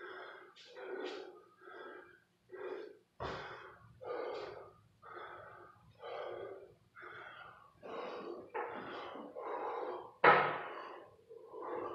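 A man panting hard from exertion, heavy breaths about one a second, out of breath in the middle of a high-rep burpee, kettlebell-swing and pull-up workout. A short thump about three seconds in, and one louder burst about ten seconds in.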